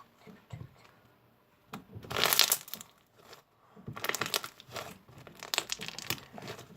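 Fluffy shaving-foam slime being squeezed and pressed by hand, giving crackling pops from the trapped air, in a short spell about two seconds in and a longer one from about four seconds.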